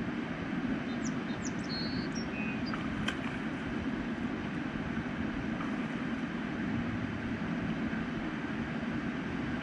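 Steady rushing of river water over rapids. A few short high chirps come about one to two seconds in, and a single sharp click about three seconds in.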